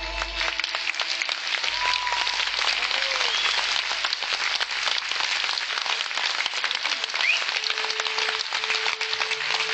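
Audience applauding steadily at the end of a live song, dense clapping from a large crowd right after the music stops.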